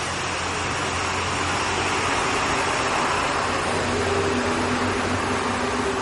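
Outdoor heating and air-conditioning unit running: a steady fan rush over a low hum, growing slowly louder, with a steady mid-pitched tone joining about four seconds in.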